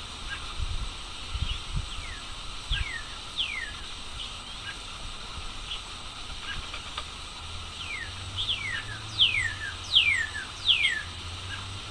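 Northern cardinal singing: clear down-slurred whistles, two about three seconds in, then a run of five louder ones near the end, with short chip notes scattered between them. A low hum and a couple of low thumps sit under the first few seconds.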